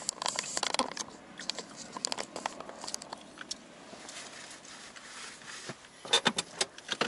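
Handling noise inside a car: irregular clicks, taps and rustling as the camera on its dashboard mount is turned and adjusted, dense in the first second and again in a burst of sharp clicks about six seconds in.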